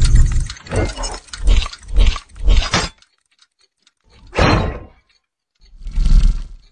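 Sound effects of an animated logo intro: a rapid run of metallic clanks and deep thuds for about three seconds, then silence, a single hit, and a deep boom near the end.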